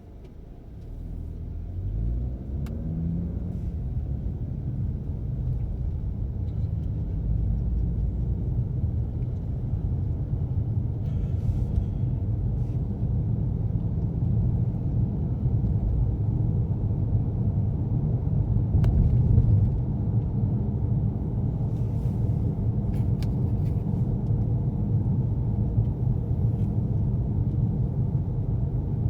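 Inside a car's cabin, the engine revs up as the car pulls away, then a steady low rumble of engine and road noise while driving.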